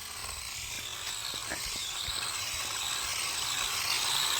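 Toy RC car's small electric motor whining steadily at a high pitch over a hissing rush, with a few light ticks about a second and a half in, growing louder.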